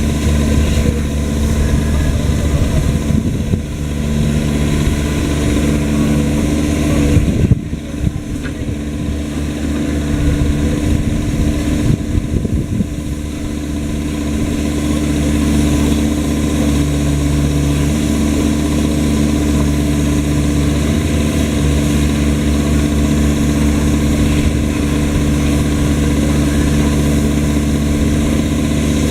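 Kubota KX-021 mini excavator's diesel engine running steadily, with a sharp knock about seven seconds in and the engine note wavering unevenly for several seconds after before settling back.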